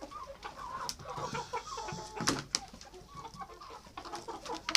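Chickens clucking, many short wavering calls overlapping, with a few sharp knocks, the loudest just before the end.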